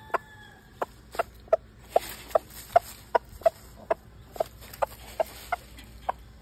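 Rooster giving a long, even series of short low clucks, about two or three a second: the rapid food call a rooster makes over freshly thrown greens.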